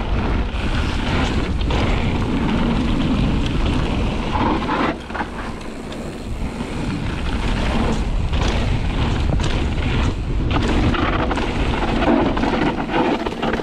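Mountain bike descending a gravel trail: tyres crunching over loose gravel, with rattles and knocks from the bike over bumps. Heavy wind buffeting on the camera microphone covers it, easing for a moment about five seconds in.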